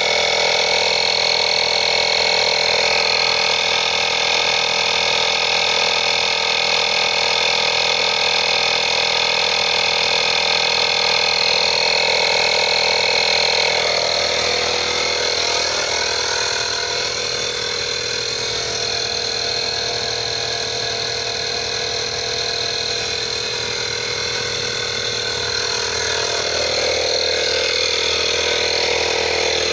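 INGCO digital portable air compressor running steadily, its electric motor and pump inflating a car tyre. The hum drops a little in level about halfway through.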